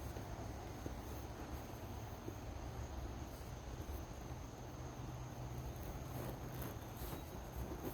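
Crickets trilling in a faint, steady, high-pitched chorus, with a low steady rumble underneath.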